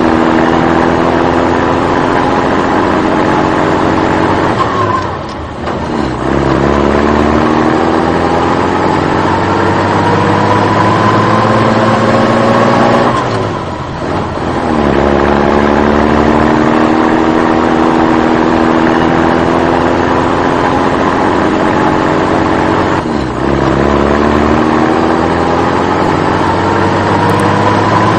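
Vehicle engine accelerating through the gears: its pitch climbs steadily for several seconds, then drops sharply at each gear change, three times, before climbing again.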